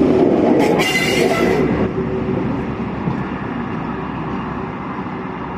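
The rear Class 43 power car of a top-and-tailed test train going past, its engine and wheels loud with a few steady tones for about the first two seconds. The train then recedes, its rumble fading steadily.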